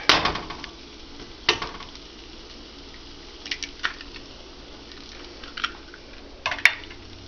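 Eggs cracked one-handed against the rim of a skillet and dropped into frying sausage: a sharp tap at the start and another near the end, with a few lighter clicks between, over a faint steady sizzle.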